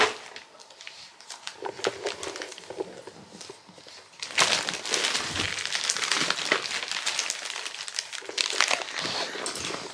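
Wrapping paper crinkling and rustling as a present is handled and unwrapped, faint and sporadic at first, then busy and continuous from about four seconds in.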